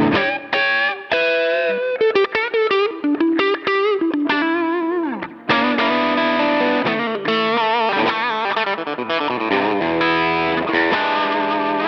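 Electric guitar played through a Line 6 Pod Go's AC30 amp model with the Minotaur overdrive switched on, giving a lightly driven blues tone. The notes waver in pitch; there are quick short phrases first, then longer ringing notes from about halfway.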